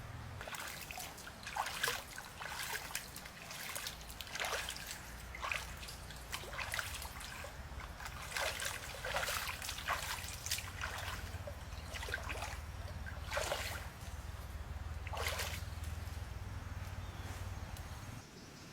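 Water splashing and trickling in irregular short bursts, about a dozen over the span, over a low steady rumble.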